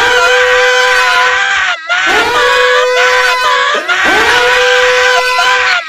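Loud screaming, three long held screams one after another, each swooping up in pitch at the start and then holding steady for nearly two seconds.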